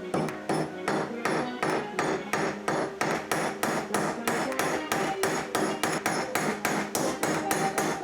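A hammer striking steel in a steady rhythm of about three blows a second, each blow ringing briefly. The work is hammering over nails used as rivets through the drilled steel sawblade pieces.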